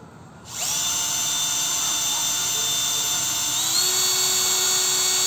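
Bosch Professional cordless drill starting about half a second in and running at speed as its bit drills into the base of a terracotta clay pot: a steady high motor whine that steps up in pitch about three seconds later, then stops abruptly.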